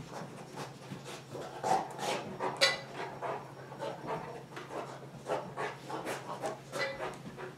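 Golden retriever panting quickly while it works, with a few sharp clicks as it noses and knocks small wooden pieces across the rug.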